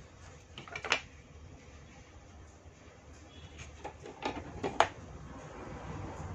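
Sharp plastic-and-metal clicks and knocks as a car stereo's front panel and a pair of pliers are handled and set down on a workbench: one about a second in, then a quick run of clicks around four to five seconds in, the last the loudest.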